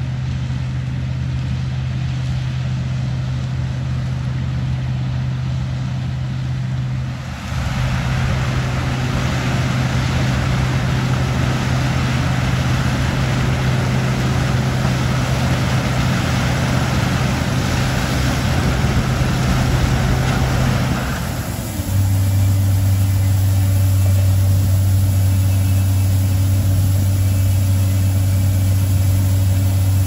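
Combine harvester engine running steadily while the machine harvests corn, with a constant low hum under the rush of threshing. About seven seconds in the sound turns louder and noisier as the combine comes close. About twenty-one seconds in it changes to a deeper, steadier engine note as the combine unloads grain through its auger into a truck.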